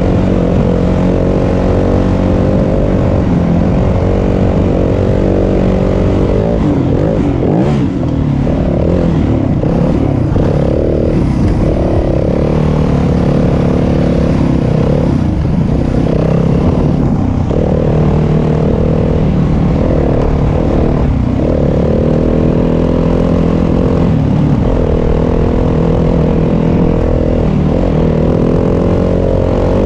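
Yamaha WR250F dirt bike's four-stroke single-cylinder engine running under way. Its pitch rises and falls repeatedly with the throttle through the middle, and it runs steadier at the start and near the end.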